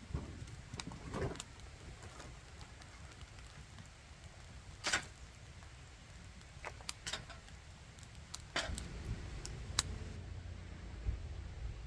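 Scattered light clicks and knocks, about eight in all, the loudest a little under halfway through, over a low rumble that grows louder about two-thirds of the way in.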